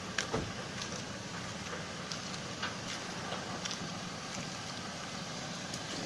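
A 4x4's engine idling steadily, with a few sharp clicks and knocks.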